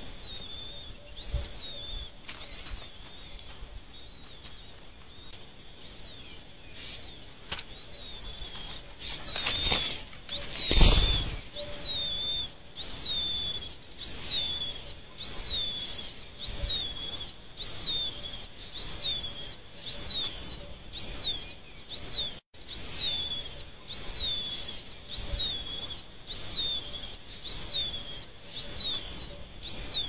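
Songbird nestlings begging from the nest: a thin call falling in pitch, repeated evenly a little more than once a second through the second half, with a few scattered calls at the start. A loud rushing noise comes about ten seconds in.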